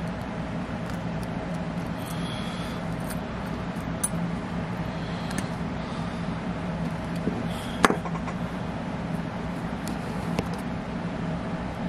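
A steady low hum with a few short, light clicks, the sharpest about eight seconds in.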